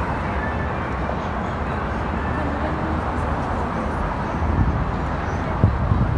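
Outdoor city street ambience: a steady low rumble of traffic under a general background hum, with a few soft low thumps near the end.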